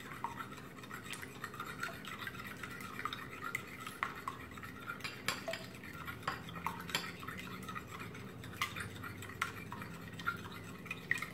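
A metal fork beating raw eggs in a bowl, with quick, irregular clinks of the fork against the bowl's side.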